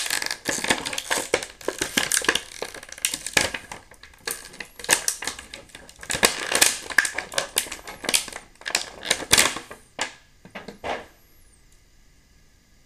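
Thin clear plastic bag crinkling and crackling in the hands as an action figure is worked out of it, in quick irregular rustles that stop near the end.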